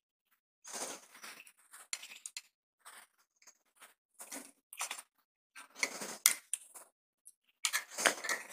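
Faint, irregular rustling and small clicks from hands handling insulated electrical wire and plastic switches while a wire is fitted to a switch terminal.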